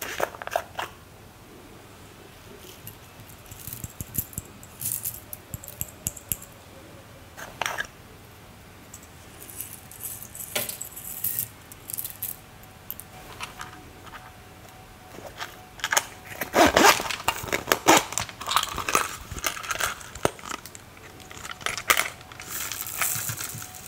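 Small plastic sequins and beads rattling and tinkling as they are tipped into plastic trays, with clicks from small containers being opened and handled. The rattling is busiest about two-thirds of the way in.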